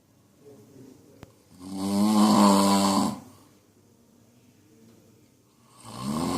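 A man snoring: one long snore on a steady pitch about two seconds in, then quiet breathing, and the next snore starting near the end.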